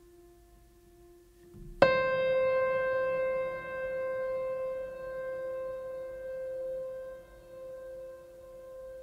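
Background music: soft held tones, then a single piano-like keyboard note struck about two seconds in and left ringing out slowly.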